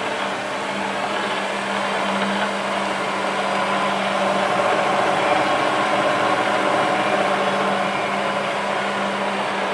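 Bridgeport vertical milling machine's 2 HP three-phase head running steadily in high range, a smooth, even hum with one constant low tone that swells slightly in the middle. The head has just been rebuilt with new bearings, bushings and belts, and it sounds nice.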